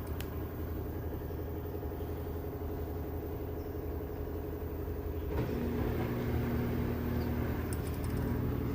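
Steady low hum of a running engine. A little over five seconds in it grows louder and takes on a deeper, steadier tone.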